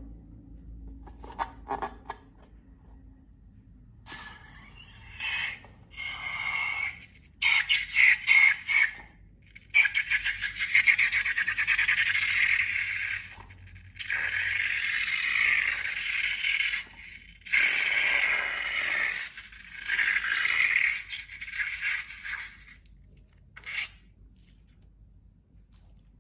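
Rubber of long balloons being scraped and rubbed by hand in repeated strokes, a squeaky scraping that comes in bursts of one to three seconds with short pauses between them.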